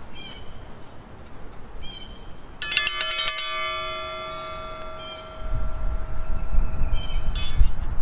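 Forged steel triangle dinner bell struck with its twisted steel striker: a rapid run of strikes about two and a half seconds in, then the bell rings out in several steady tones that fade over a couple of seconds, with another short burst of strikes near the end. Birds chirp faintly, and a low rumble comes in during the second half.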